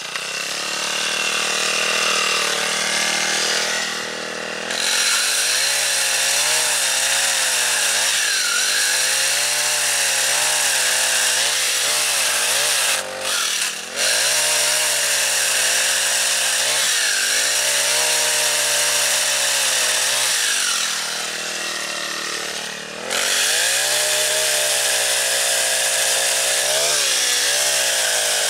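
Knockoff Honda GX50 four-stroke engine driving a pole chainsaw attachment through a log, revving up and down as it cuts. It is working with the engine held upside down and keeps running fine, easing off to a lower idle a few times.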